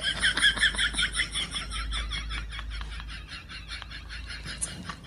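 An animal's rapid chirping call, about eight chirps a second, loudest at the start and fading away.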